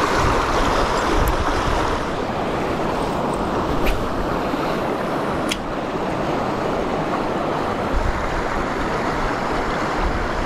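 Fast river current rushing steadily, with wind buffeting the microphone. Two brief clicks sound in the middle.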